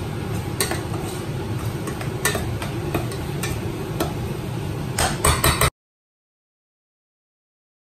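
A metal spoon stirring and scraping in a stainless steel pot of sizzling curry, with many sharp clicks of the spoon against the pot and a quick run of louder clicks about five seconds in. The sound then cuts off to dead silence.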